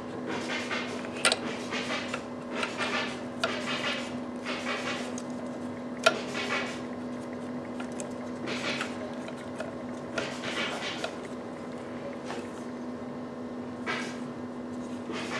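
Gloved hands handling plastic hoses and connectors in a car's engine bay: irregular rustling and light plastic clicks, with a sharp click about six seconds in, over a steady low hum.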